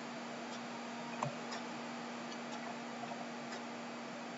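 Quiet room tone: a steady hiss with a low hum, and a few faint, irregularly spaced ticks.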